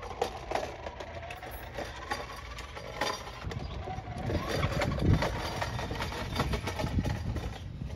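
Handling noise from a power cable being fished and pushed around the brake lines in a car's engine bay: irregular scrapes, rustles and clicks over a low steady rumble.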